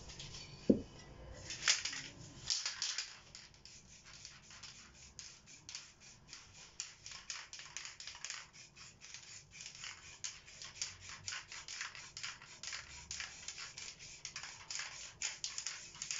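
Aerosol spray-paint can hissing in many short, rapid bursts, several a second. A sharp click about a second in is the loudest moment.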